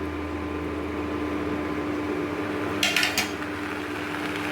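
A cooking utensil clinks against a pan of simmering tomato-onion chutney a few quick times about three seconds in. A steady low hum runs underneath.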